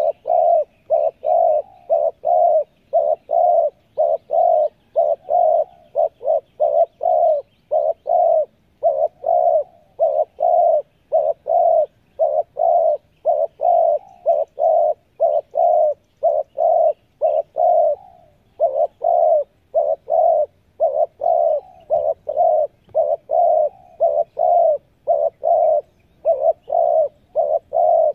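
Spotted dove cooing in a fast, unbroken string of short coos, about three a second, with a brief break about 18 seconds in.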